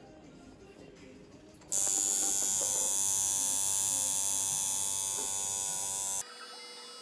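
Coil tattoo machine buzzing loudly while lining, starting suddenly about two seconds in and stopping abruptly about six seconds in. Background music follows near the end.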